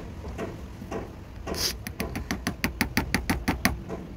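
Rapid, even clicking at a traditional wood lathe, about six clicks a second, beginning a little over a second and a half in with a short sharp scrape, while a small wooden top is worked on it.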